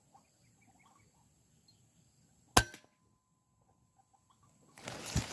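A single sharp shot from an FX Impact M3 PCP air rifle about two and a half seconds in, preceded by faint repeated calls of a white-breasted waterhen. Near the end comes a brief burst of rustling noise.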